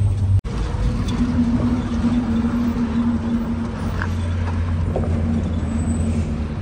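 Truck engine running with a steady low drone. The sound cuts out for an instant about half a second in.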